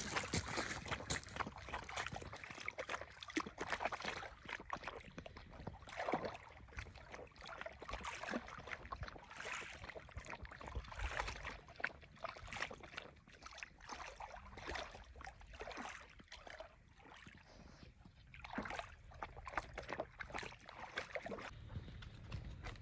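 Shallow lake water splashing and sloshing irregularly as a dog wades through it and dips its muzzle in.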